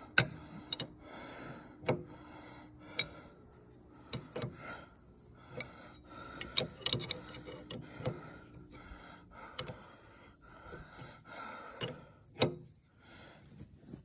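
Scattered metallic clicks and clinks of a wrench working a hydraulic fitting into the control valve of a log splitter, coming at irregular intervals.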